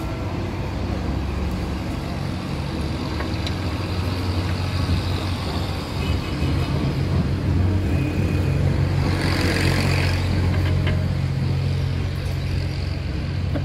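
An engine running steadily with a low hum, and a short hiss about nine seconds in.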